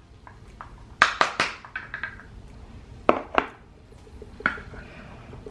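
Hard makeup containers and brushes clicking and clattering against each other as a hand rummages through them. A quick run of clicks comes about a second in, two sharp knocks around three seconds in, and a single click near the end.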